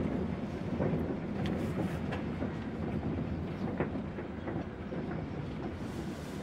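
Strong wind buffeting the closed RV, heard from inside as a steady rumble, with scattered light ticks against the body.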